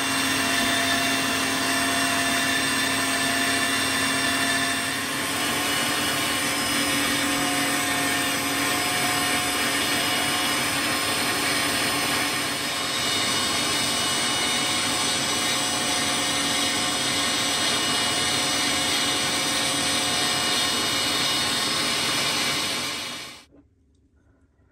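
Electric meat grinder running steadily as it minces pork neck and onion, a continuous motor hum whose pitch shifts slightly a couple of times as the load changes. It cuts off suddenly about a second and a half before the end.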